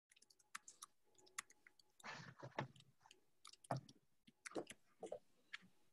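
Near silence with faint, scattered short clicks and a few brief soft noises.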